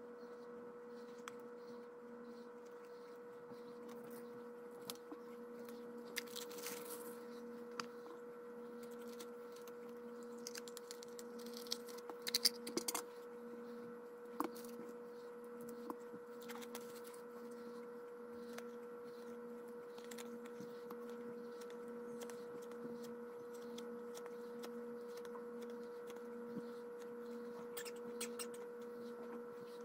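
A steady electrical hum, with scattered clicks, scrapes and rustles from handling a small metal mint tin and a deck of playing cards, the busiest stretch about twelve seconds in.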